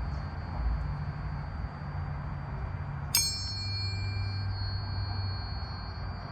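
Tuning forks pitched to C and G, a perfect fifth, ringing. One is struck about three seconds in with a sharp metallic ping whose bright overtones fade within about a second, leaving a quieter sustained tone.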